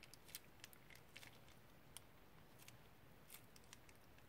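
Faint, irregular little clicks and crackles of slime squelching as it is squeezed out of a plastic piping bag and the bag is pulled away.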